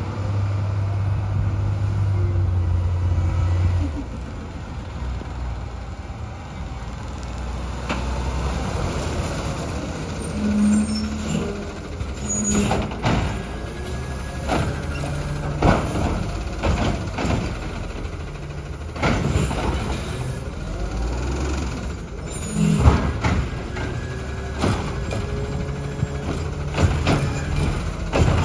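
Automated side-loader garbage truck with its diesel engine running, a steady low hum for the first few seconds, then pulling in and working its hydraulic arm: gliding hydraulic whines and a series of sharp clanks and knocks as a cart is handled.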